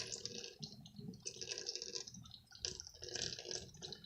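Water splashing and bubbling in a cup with dry ice in it, coming and going unevenly.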